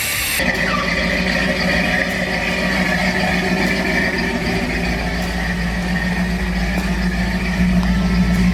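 Ford F100 pickup's engine running steadily on its Holley Sniper throttle-body fuel injection, after a dead injector was replaced. The engine sound comes in abruptly about half a second in and gets slightly louder near the end.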